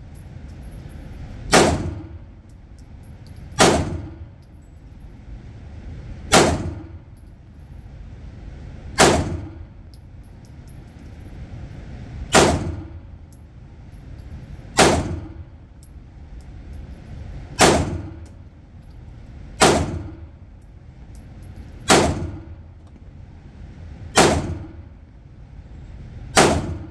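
A 9mm Polymer80 Glock-pattern pistol firing single shots, eleven in all, spaced about two to three seconds apart, each shot followed by a short echo.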